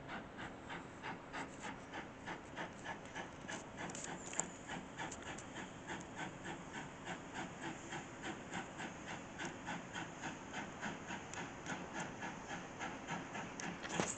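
Steam locomotive working, its exhaust beating in a steady chuff with steam hiss, the beats quickening from about three to about five a second as it gathers speed. A single sharp high click about four seconds in.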